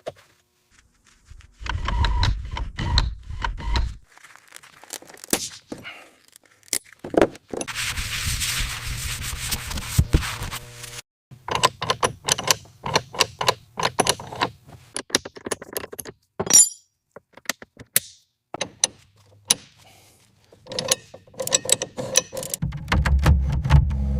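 Workshop sounds of metal parts being handled: a string of clinks, taps and scrapes. About eight seconds in comes a few seconds of hissing noise, and a low machine hum comes in briefly near the start and again near the end.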